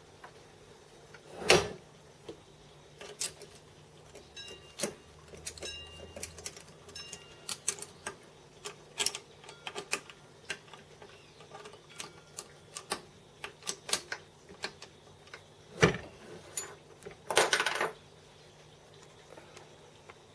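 Hand tools and small metal parts being handled: irregular metallic clicks and clinks, with a louder knock about a second and a half in, another near 16 s, and a short rattling clatter soon after.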